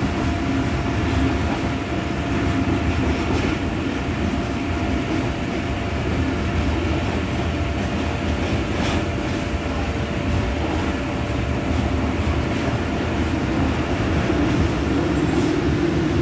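Passenger train rolling into a station, heard from inside a carriage: a steady rumble of wheels on the track with a few faint clicks.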